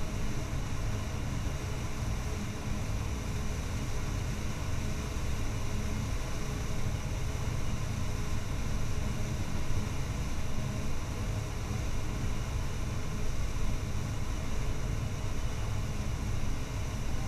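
Claas Jaguar 970 self-propelled forage harvester chopping corn silage under full load: a steady drone from its MAN V12 engine and cutterhead, with a constant hiss above it.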